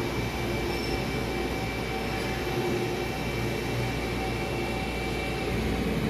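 Steady drone of running machinery in a CNC lathe shop: a low hum with a few steady whining tones above it, and no breaks.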